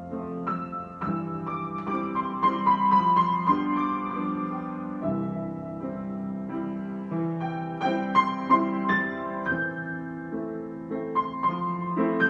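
Solo piano improvisation: sustained low chords under a freely moving melody of single notes.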